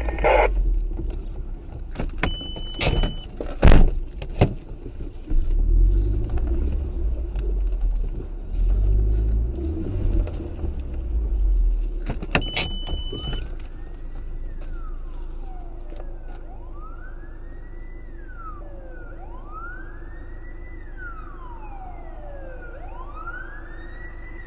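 Low vehicle rumble with a few sharp knocks and two short high beeps, then a police siren wailing, rising and falling about every three seconds through the second half.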